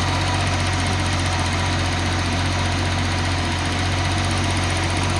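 Datsun 280ZX turbo's L28ET straight-six engine idling steadily.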